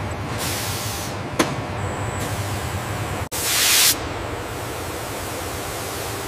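Steady low hum of automated carbon-fibre tape-laying machinery. A short hiss of air comes about half a second in, then a sharp click. A louder hiss of about half a second comes about three seconds in.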